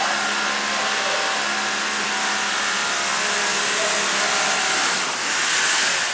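Electric power tool motor running steadily with a loud whirring hiss, winding down right at the end.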